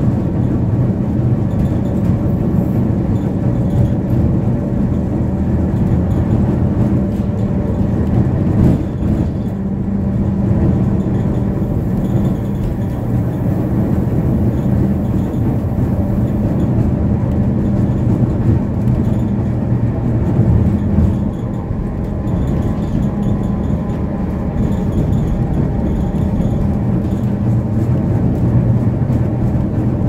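Gotha T57 tram running along the line, heard from on board: a steady rumble of wheels on rails with motor hum.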